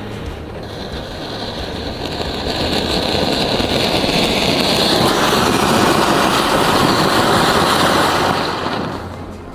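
An anar (cone fountain firecracker) burning, a rushing hiss that builds over the first few seconds, is loudest past the middle, and dies away near the end.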